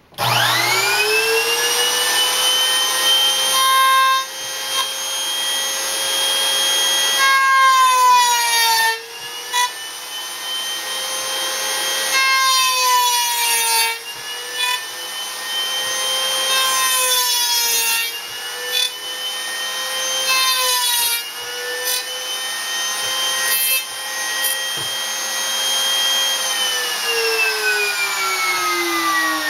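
A 65 mm router motor on a pantorouter spins up to a steady high whine. Every few seconds its pitch sags and a rough cutting noise joins it as the bit is pushed into the wooden board to cut dovetail tails. Near the end the motor is switched off and winds down, its pitch sliding steadily lower.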